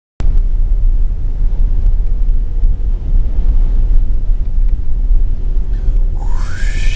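Steady heavy low rumble of a moving vehicle. About six seconds in, a pitched tone slides upward and then holds.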